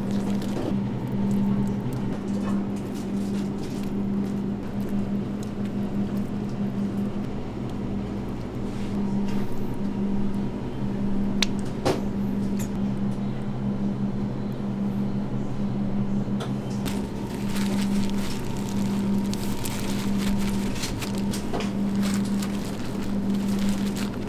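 Steady low electric motor hum of kitchen equipment that swells and fades about once a second, with a couple of light clicks near the middle and soft rustling of plastic food-prep gloves.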